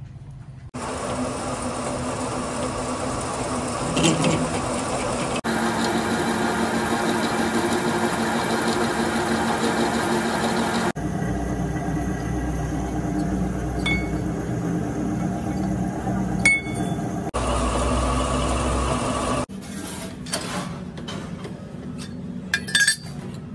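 Workshop machinery running steadily in several stretches that start and stop abruptly. Sharp metal clinks and taps come from work at a metal lathe's four-jaw chuck, a few in the middle and a quick cluster near the end.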